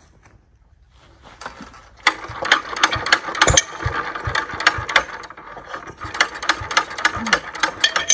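1934 International Harvester LA single-cylinder engine being cranked over by hand without starting: a run of irregular clanks, clicks and low thumps beginning about two seconds in. It fails to catch because no fuel is reaching the cylinder, and the spark plug comes out dry.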